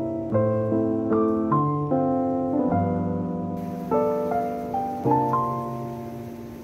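Background piano music: one chord after another, each note struck and left to fade. A faint hiss joins underneath about three and a half seconds in.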